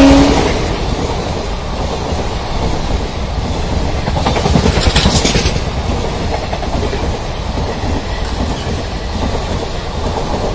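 Indian Railways express passenger coaches rushing past at speed: a steady rumble and rush with wheels clattering over rail joints, the clatter heaviest about four to five and a half seconds in. The locomotive's horn cuts off right at the start.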